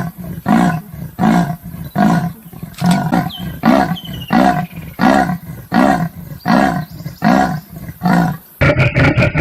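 Leopard giving its sawing call: a long series of deep, rasping grunts, about two a second. Near the end it cuts off and a different, denser sound takes over.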